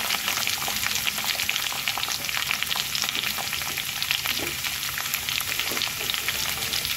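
Cut vegetables frying in hot mustard oil in a metal kadai: a steady, dense crackle of sizzling and spitting oil.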